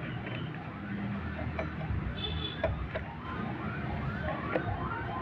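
A few sharp clicks of a metal screwdriver working at the cast end cover of the water pump's motor. Behind them, a short rising-and-falling chirp repeats two to three times a second over a low steady rumble.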